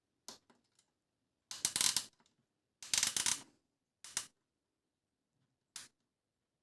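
Plastic clicks and two short, louder rattling bursts from a toy Miele washing machine being handled while it is loaded and its program set.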